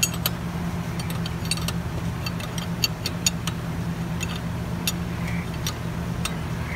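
Irregular light metal clicks and ticks of a wrench turning the center bolt of a pulley installer tool as it presses the water pump drive pulley onto the camshaft, over a steady low hum.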